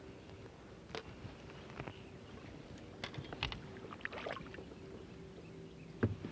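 A small hooked bass splashing faintly at the surface as it is reeled up beside a boat, in a few short bursts, with a sharper knock against the boat's side about six seconds in as it is lifted aboard.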